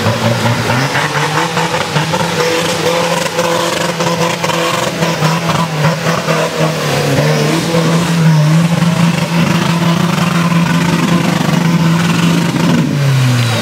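Modified Suzuki Samurai off-road trial vehicle's engine held at high revs under full load, climbing a steep dirt slope with its wheels spinning and throwing dirt. The revs drop near the end.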